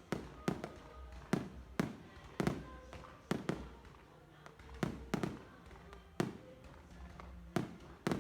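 Fireworks going off: sharp bangs at irregular intervals, one or two a second, each with a short echoing tail.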